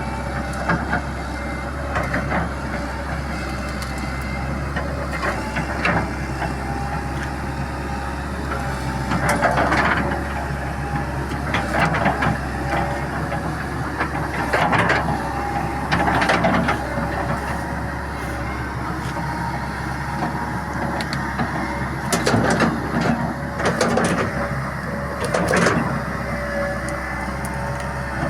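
Excavator engine running steadily under load, with several louder bursts of cracking and crunching as the machine breaks up a large tree root.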